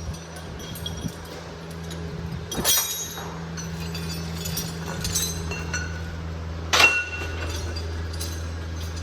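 Metal tools and engine parts clinking several times, the sharpest about three seconds in and near seven seconds, over a steady low mechanical hum during engine removal work.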